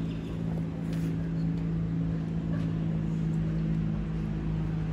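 Steady low machine hum holding a few fixed pitches at an even level.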